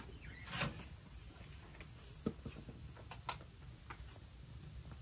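Wood fire crackling in a small metal wood stove, with irregular sharp clicks and pops and light knocks as the burning logs are pushed around with a poker; two louder knocks stand out, one just after the start and one a little past three seconds in.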